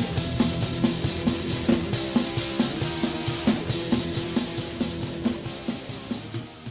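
Rock music with a steady drum beat, about two hits a second, fading out near the end.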